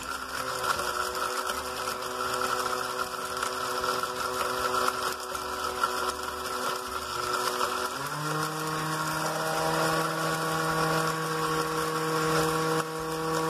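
Oster countertop blender running, grinding cinnamon in liquid, with a steady motor hum. About eight seconds in, the hum steps up to a higher pitch and holds there.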